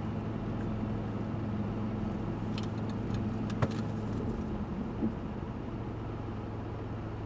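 Vehicle engine idling with a steady low hum, heard from inside the cab of the stopped vehicle. A single light click comes about three and a half seconds in.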